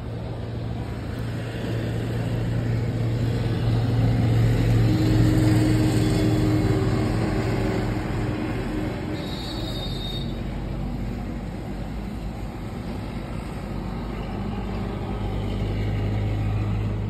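A motor vehicle engine running with a steady low hum, swelling louder about five seconds in and again near the end. A brief high tone sounds about halfway through.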